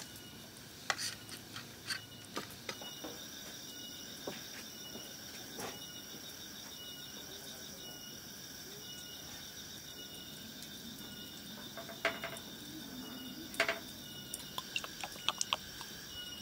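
Steady insect chorus with a chirp repeating under a second apart. Scattered light clicks and knocks of wooden skewers and meat being handled on a metal tray and wire grill come early on and again toward the end.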